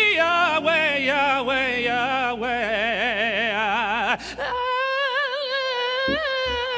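A man singing gospel solo in a high, drawn-out melismatic run, holding long notes with wide vibrato. There is a brief break about four seconds in before another long held note. A low accompaniment sits underneath, with regular low thumps near the end.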